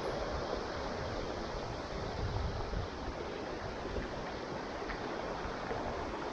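Steady rushing of flowing river water, with a low rumble underneath.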